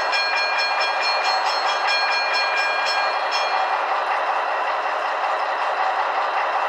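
Piko V 211 H0 model locomotive's sound decoder ringing its bell in rapid strokes, about four a second, which stop a little over three seconds in. Under it runs the steady idling sound of the model's simulated diesel engine, played through its small built-in speaker.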